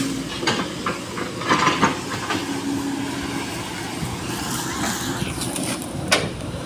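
SANY SY215C hydraulic excavator running while its bucket chops into a felled oil palm trunk. Sharp cracks and knocks of wood come about half a second in, around one and a half seconds, and near the end, over the steady machine noise.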